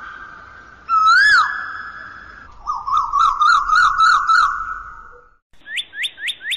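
Bird calls: two long calls that swoop up and then drop, then a fast wavering trill, then a quick run of short rising notes near the end.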